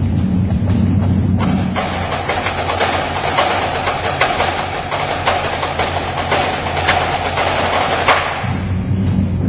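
Indoor drumline playing. Deep low drums give way about a second and a half in to dense, high drumming with a string of sharp accented hits, and the low drums come back near the end.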